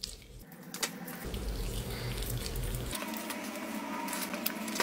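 A person chewing a mouthful of sauced chicken wing: soft, wet mouth clicks scattered throughout.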